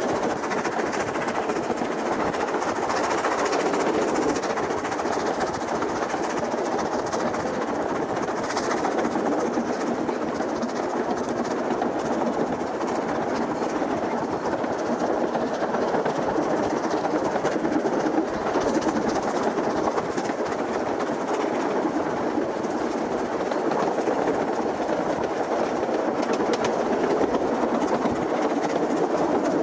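Carriage of the Isle of Man Railway's 3 ft narrow-gauge steam train running along the line, heard from on board: a steady rumble and rattle of wheels on rails.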